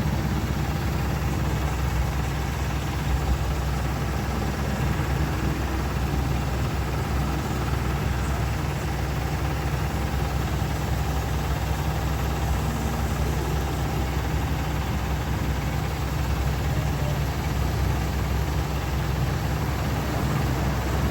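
Mahindra Supro's diesel engine idling steadily.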